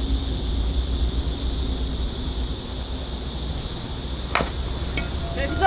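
Steady low wind rumble with a high, even hiss, broken once about four seconds in by a single sharp knock. A brief shout comes near the end.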